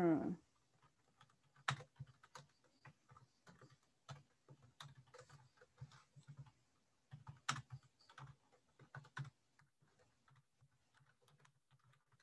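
Typing on a computer keyboard: irregular keystrokes in quick runs, with a few louder taps, thinning to faint clicks in the last couple of seconds.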